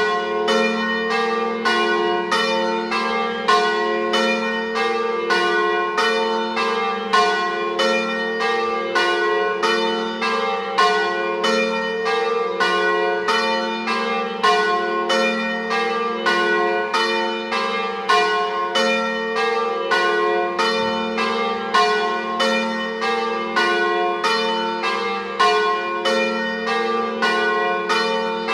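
Church bells, cast by Cavadini of Verona in 1926 with a third bell by De Poli from 2022, swinging together in a full peal rung in the Treviso style. Strikes come about two a second in a continuous, overlapping pattern, several pitches ringing on over each other.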